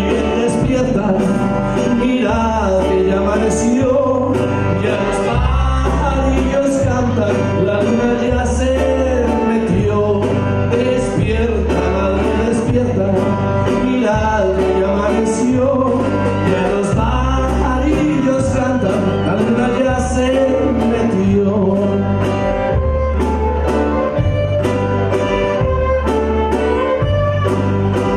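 Live band playing a tune: saxophones and keyboard carrying the melody over electric bass, guitars and a drum kit, with a steady bouncing bass pulse and regular cymbal strikes.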